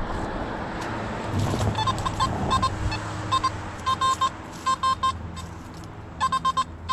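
Metal detector giving short, same-pitched beeps in quick clusters of two to four as the coil sweeps over the ground, starting a couple of seconds in after a brief rustle.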